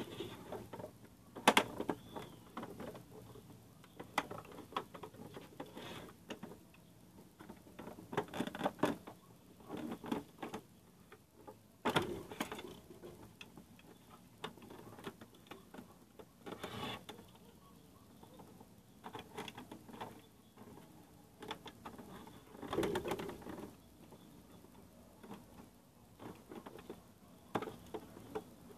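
Irregular clicks, taps and small metallic knocks from hands and tools handling the mechanism of an Elgin sewing machine head during servicing, with a few louder knocks among them. The machine is not running.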